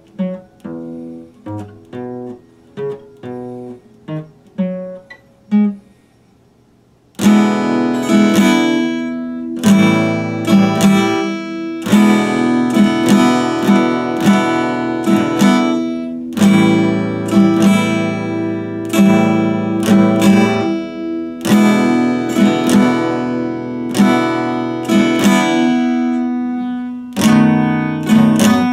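Epiphone acoustic guitar played by hand. For the first six seconds it plays quiet picked single notes and broken chords, then a brief pause. From about seven seconds in it plays loud strummed chords.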